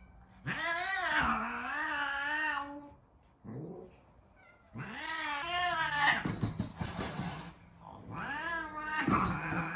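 Male Savannah cat yowling in three long, wavering calls, with a hiss after the second and another near the end: the angry, aggressive warning of an adult cat meeting unfamiliar kittens.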